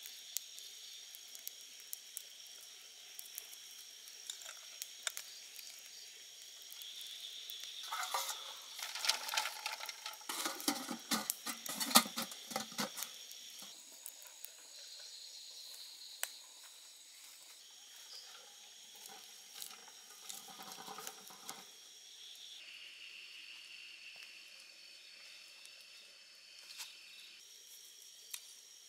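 Night insects chirping steadily, with a louder stretch of crackling and clicking from about eight to thirteen seconds in, sharpest near twelve seconds, and a smaller patch of crackling around twenty seconds.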